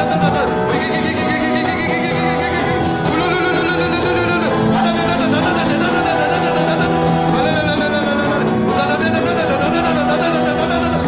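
A congregation praying aloud in tongues together over sustained worship music: many wavering voices over held instrumental chords.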